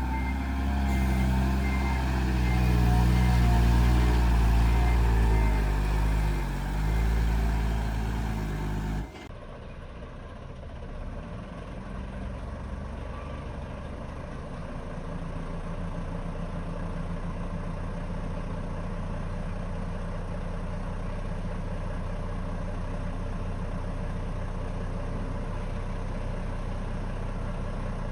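Heavy diesel engine of earthmoving machinery running loud, with a reversing alarm beeping in an even rhythm. About nine seconds in the sound drops abruptly to a quieter, steady diesel engine rumble.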